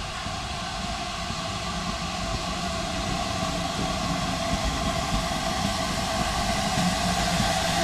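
GWR 2800-class 2-8-0 steam locomotive 2857 approaching along the line, its running noise and a steady hiss growing steadily louder as it draws closer.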